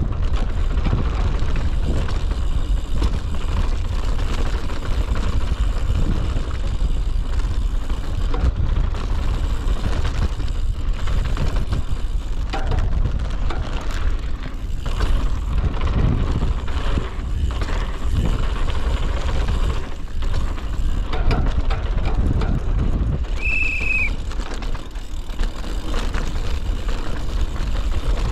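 A kid's mountain bike running down a dirt downhill trail, heard from a camera riding along: tyre noise and the bike rattling over the ground under heavy wind buffeting on the microphone. There is a brief high squeal a little before the end.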